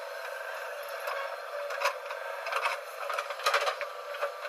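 JCB 3DX backhoe loader's diesel engine running steadily, with a series of sharp knocks and clanks as the backhoe arm and bucket swing down and dig into the soil, the loudest cluster about three and a half seconds in.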